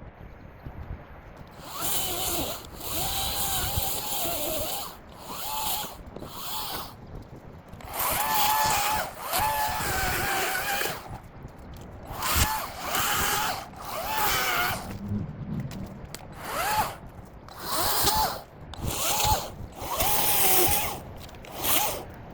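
Ego battery-powered chainsaw run in about a dozen short bursts of one to three seconds each, its electric motor whine dipping and rising in pitch as the chain cuts through branches.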